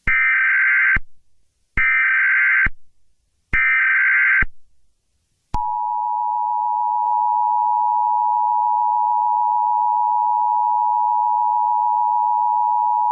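Emergency Alert System tones: three short bursts of SAME header data tones, each just under a second long, then the EAS two-tone attention signal (853 and 960 Hz), which starts about five and a half seconds in and holds steady. Together they mark the start of a new emergency alert.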